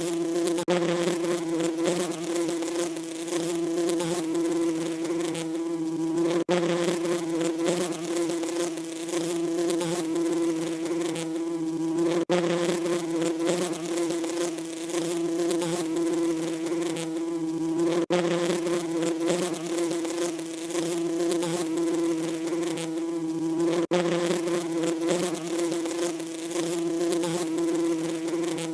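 Bees buzzing in a steady drone. The same stretch repeats about every six seconds, with a brief dropout at each join of the loop.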